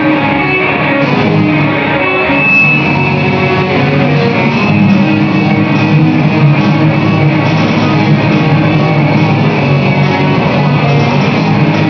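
Heavy metal band rehearsing live: electric guitars playing distorted riffs together over a keyboard part that stands in for the missing drums. Loud and steady throughout.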